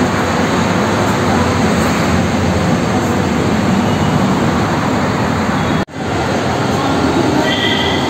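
Steady, loud outdoor rushing noise with a faint low hum underneath, dropping out for an instant about six seconds in.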